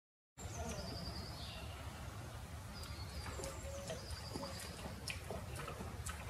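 Outdoor ambience that cuts in abruptly just after the start: birds chirping in repeated short falling calls over a low steady rumble, with a few scattered soft clicks.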